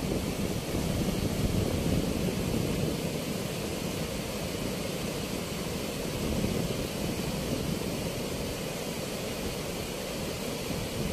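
Muddy floodwater rushing through the open sluice gates of a weir: a steady roar of turbulent water, a little louder in the first few seconds.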